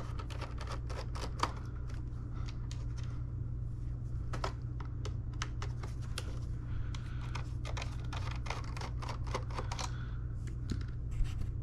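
Irregular small clicks and ticks of a Torx screwdriver backing small screws out of a vacuum cleaner's plastic brush-head housing, with the plastic parts being handled, over a steady low hum.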